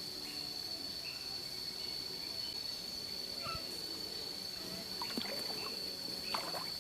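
Forest-stream ambience: a steady high insect drone over faint trickling stream water, with faint short chirps repeating now and then. Two sharp knocks stand out about five and six seconds in.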